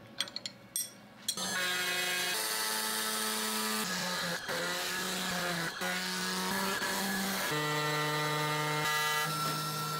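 A few light clicks of a wrench on the spindle's collet nut, then about a second and a half in a 6090 CNC router starts surfacing an MDF spoilboard: a steady machine hum of several tones over cutting noise, its pitch shifting in steps a few times as the machine changes moves.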